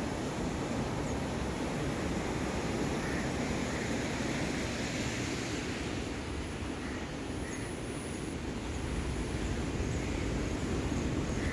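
Steady roar of heavy surf breaking on a beach, mixed with wind on the microphone, with a few faint short chirps here and there.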